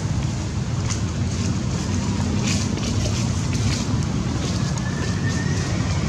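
Wind buffeting the microphone as a steady low rumble, with a few faint crackles about a second in and around the middle.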